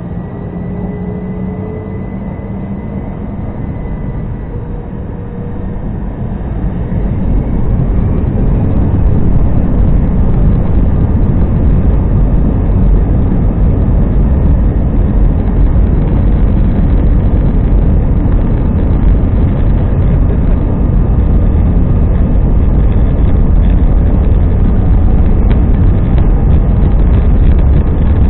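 Airbus A320-214's CFM56 jet engines spooling up to takeoff thrust, heard inside the cabin over the wing: a faint rising whine in the first few seconds, then the sound grows louder about six to eight seconds in and settles into a loud, steady rumble as the aircraft accelerates down the runway.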